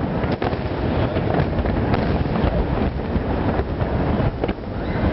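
Fireworks going off in a steady barrage: a dense, continuous low noise broken by many irregular sharp cracks and pops.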